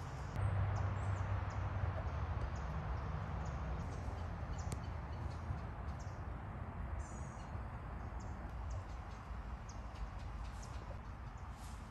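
Small birds chirping in short, scattered high calls over a steady outdoor background hiss, with a low rumble strongest in the first couple of seconds.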